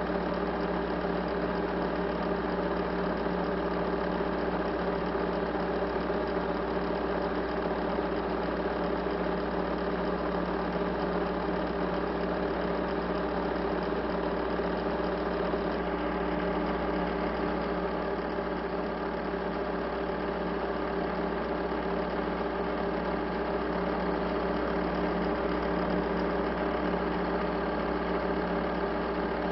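A steady, unchanging mechanical drone: a hum made of several constant tones, with no breaks or changes.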